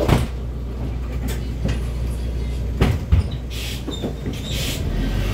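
BredaMenarinibus Avancity city bus heard from inside while driving: a steady low engine drone, with a few sharp knocks about three seconds in and a couple of short hisses soon after.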